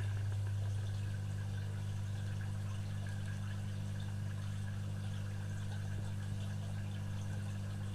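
Steady low hum with a faint watery trickle and hiss over it, like a fish tank's water pump or filter running.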